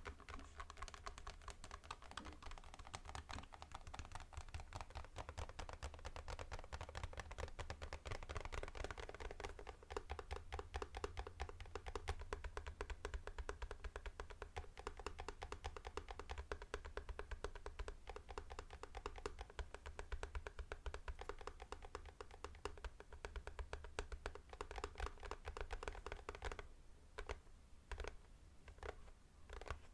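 Fast typing on a mechanical keyboard: a dense, rapid stream of key clicks that thins to a few separate keystrokes near the end.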